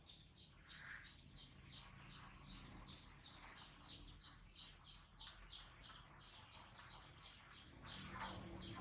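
Faint, rapid high-pitched chirps and ticks throughout, with a few sharper clicks in the second half and a short downward-sliding call near the end.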